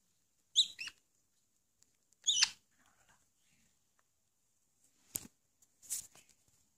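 Two short, high-pitched squeaky caique calls, about half a second in and again more loudly about two and a half seconds in. Near the end come a couple of sharp clicks and a brief scuffle.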